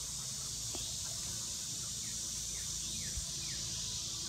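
Steady high-pitched insect buzzing, with four short falling bird notes about two to three and a half seconds in.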